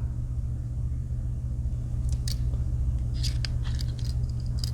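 A few light clicks and taps from handling a Victorinox Huntsman Swiss Army knife and its scale toothpick, over a steady low hum.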